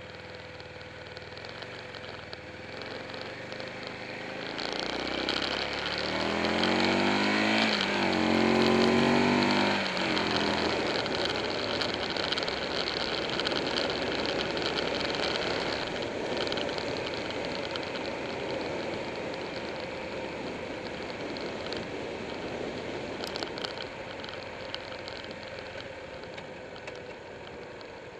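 Buell 1125R's V-twin engine accelerating hard, its pitch climbing and breaking at a gear shift or two, loudest about nine seconds in. After that comes a steady rush of wind and road noise while cruising, slowly easing off toward the end.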